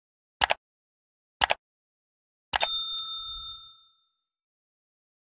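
Subscribe-button animation sound effects: two quick clicks about a second apart, then a click and a bright bell ding that rings out for about a second.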